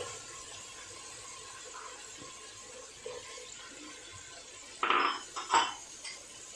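Sauce simmering with a faint steady sizzle in a nonstick wok as capsicum and carrot strips are tipped in. About five seconds in come two short clatters of kitchenware against the pan, the loudest sounds.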